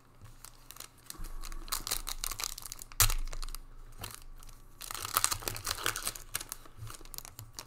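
Foil wrapper of a Panini Prizm football retail pack being torn open and crinkled by hand. The crinkling comes in two long stretches, with one sharp crackle about three seconds in.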